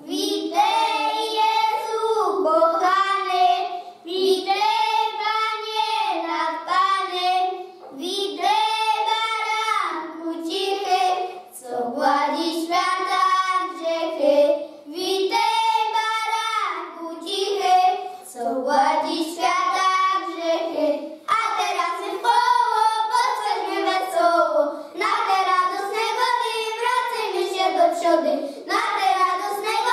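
A group of children singing a song together, in phrases of about four seconds with short breaths between them.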